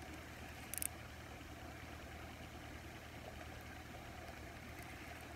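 Faint, steady low engine hum, with one short click about a second in.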